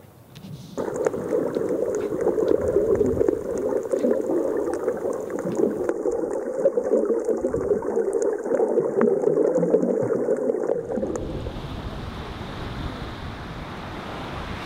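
Muffled underwater sound from a camera below the surface over a coral reef: a dense rush with scattered crackling clicks. About eleven seconds in it changes to small waves breaking and washing up on a sandy shore.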